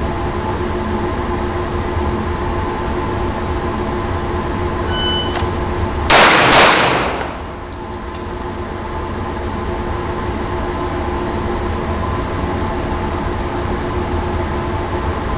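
An electronic shot timer beeps once, and about a second later a handgun fires two quick shots, roughly 0.4 s apart, drawn from concealment on the timer's start signal. A few light clicks follow, over a steady loud hum.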